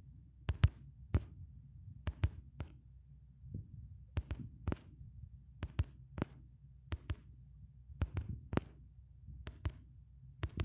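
Finger taps and handling of a phone, picked up by its own microphone: about twenty short clicks at uneven intervals, many in quick pairs, over a low steady hum.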